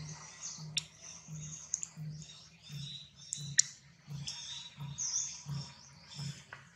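Small birds chirping, with a few sharp ticks and an even low pulsing about three times a second underneath.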